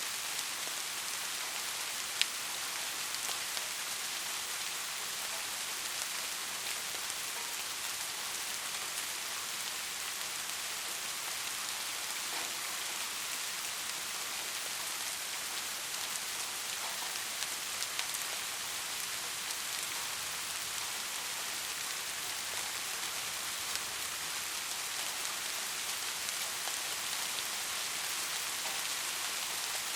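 Soft, steady rain falling, a continuous even hiss with scattered individual drops ticking, one sharper drop about two seconds in.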